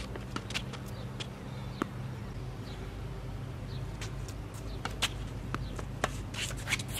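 Tennis being played on an outdoor hard court: a scatter of sharp clicks and taps from racquets striking the ball, the ball bouncing and shoes scuffing on the court, thickest in the second half. Under it runs a steady low hum.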